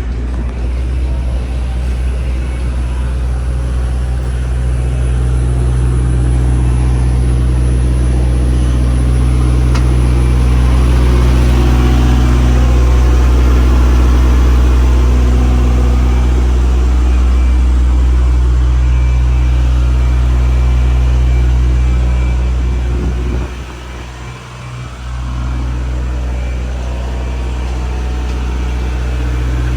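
Boat engines running steadily with a deep, even drone, dipping briefly in level about 23 seconds in before carrying on.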